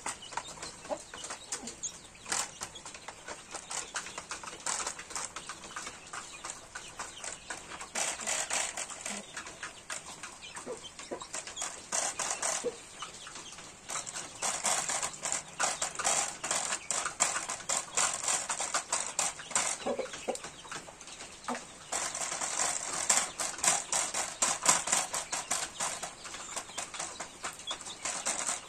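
Chickens pecking feed from a shallow feed tray: dense runs of quick tapping clicks, heavier in stretches of a few seconds, with a few short clucks.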